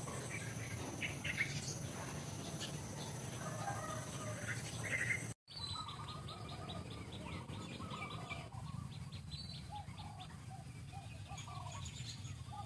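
Small birds chirping, with a rapid trill of quick repeated notes about six seconds in, over a steady low background hum. The sound cuts out for an instant about five seconds in.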